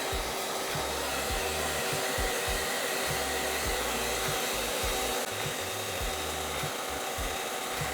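Hair dryer blowing steadily, drying fresh paint on the trim, with a faint motor hum in its hiss; it cuts off suddenly at the end. Soft background music with a bass line runs underneath.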